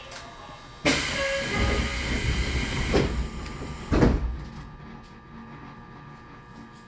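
Tobu 20400 series commuter car's pneumatic doors closing: a loud hiss of air starts about a second in, with thuds about three and four seconds in as the doors shut, then a quieter steady hum of the standing train.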